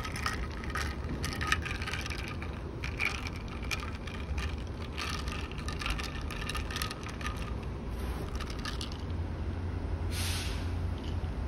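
Outdoor urban ambience: a steady low rumble of distant traffic with scattered short chirps and clicks, and a brief hiss about ten seconds in.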